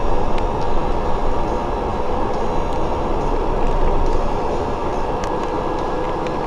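Interior noise on the top deck of a moving double-decker bus: a steady engine and road rumble, with a few sharp clicks and rattles from the bodywork.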